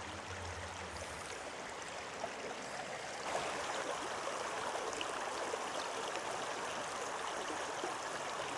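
Turon River flowing, a steady rushing of water that gets louder about three seconds in.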